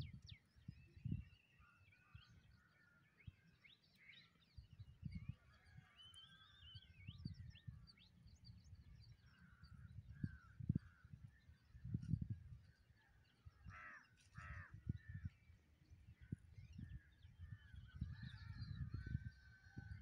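Wind buffeting the microphone in repeated gusts, with several birds chirping and calling. Two louder, harsh calls come a little past the middle.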